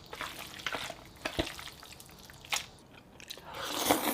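A person eating with soft chewing and biting sounds and scattered small clicks. A noisy swell builds near the end.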